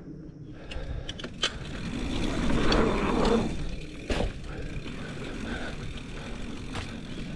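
Mountain bike rolling over dirt into a steep kicker: rushing noise of tyres and air grows louder, is strongest around three seconds in, then a sharp knock comes about four seconds in, followed by steadier rolling noise.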